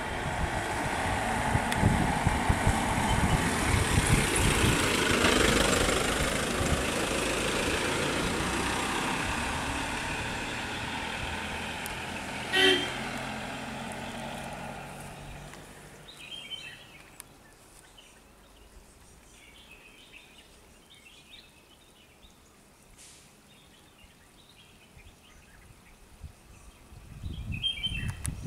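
A motor vehicle drives past on a hill road, engine and tyre noise rising to its loudest a few seconds in, then fading away over about fifteen seconds. A single short horn toot sounds about halfway through. Afterwards it is much quieter, with faint high chirps.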